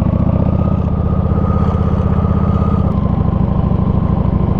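Motorcycle engine running steadily at low revs, with a slight change in its note about three seconds in.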